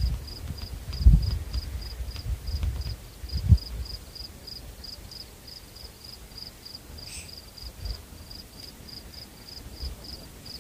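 A cricket chirping steadily, a short high chirp about four times a second. Two low thumps come in the first few seconds.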